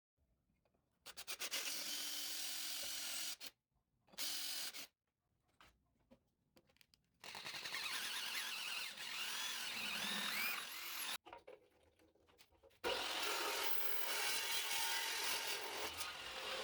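A tool cutting into a piece of steel, in four separate bursts of a few seconds each that stop abruptly; high wavering squeals run through the third, longest burst.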